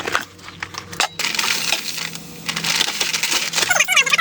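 MIG welder arc crackling steadily while welding steel skid plates, a fast, dense crackle with a low hum underneath, after a few separate metallic clicks in the first second.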